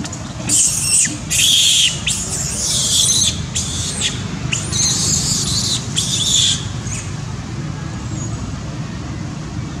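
Macaques screaming in a scuffle: a run of about six shrill screams and squeals over the first six or seven seconds, then only a steady low background rumble.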